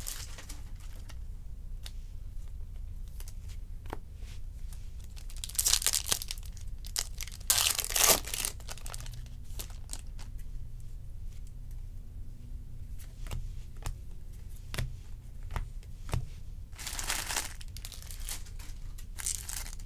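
Baseball card packs being opened and handled: foil pack wrappers crinkling and tearing in four short bursts, with light clicks of cards being flicked and shuffled between them.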